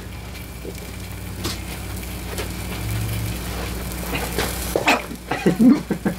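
An egg sizzling as it fries on the hot surface of an electric space heater, over a steady low hum. There are a few brief voice sounds near the end.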